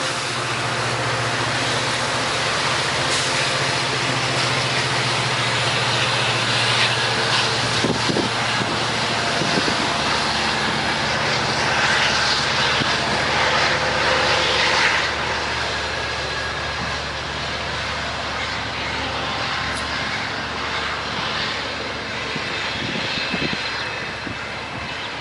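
A train passing: a locomotive engine's steady drone for the first several seconds, then the rumble and clatter of rolling wheels, loudest about halfway through, easing off toward the end.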